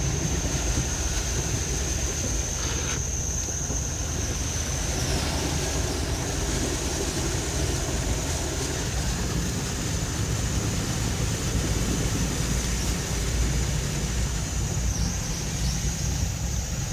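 Steady heavy rain, an even hiss with a low rumble underneath, and a thin high steady tone that dips briefly twice.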